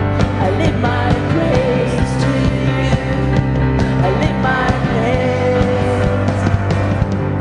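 Worship band playing a song with drums and amplified instruments, a singer's voice carrying the melody over it.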